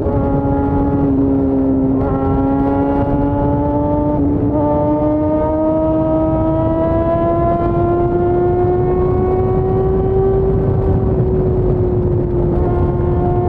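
Yamaha FZ6's 600 cc inline-four engine pulling steadily under way, its pitch climbing slowly with brief breaks about two and four seconds in, then easing off slightly near the end, over low wind rumble.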